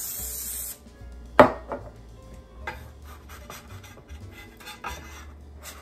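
Aerosol cooking spray hissing onto a stainless steel bench scraper for under a second, then a single sharp knock, then the bench scraper scraping and tapping on a cutting board as it slides under soft bagel dough.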